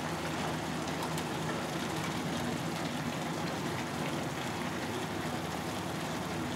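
Broth boiling in a stainless-steel pot of wolfberry (goji) leaves, a steady bubbling hiss, as chopsticks stir the greens.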